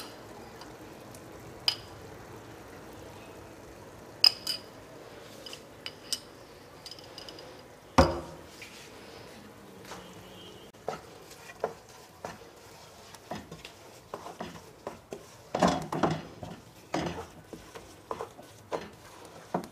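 Metal spoon clinking against a glass jar and the rim of a nonstick pot as ghee is spooned in, with a sharp knock about eight seconds in. Near the end a spatula scrapes and taps in the pot, stirring grated carrots, with a quick run of clicks.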